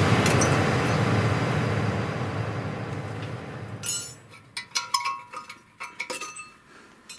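A loud hiss fades away over the first three seconds. From about four seconds in come light metallic clinks and ticks as the brake pads are handled in the front caliper bracket of a Hyundai Getz, metal pad backing plates knocking against the bracket.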